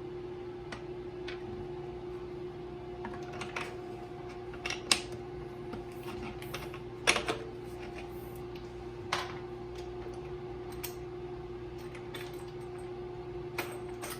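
Scattered light clicks and taps of plastic parts and hardware being handled while fitting a bidet attachment to a toilet, the loudest about five, seven and nine seconds in, over a steady hum.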